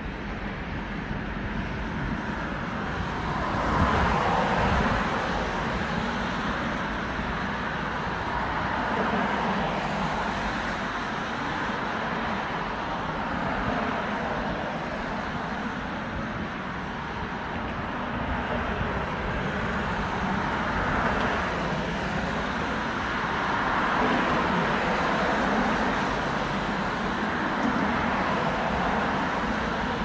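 Road traffic: a steady rush of car tyres and engines, swelling as cars pass several times, loudest about four seconds in.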